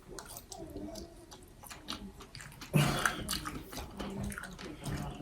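Close mouth sounds of people chewing soft, juicy fruit: wet smacks and small clicks throughout, with a brief louder voice sound about three seconds in.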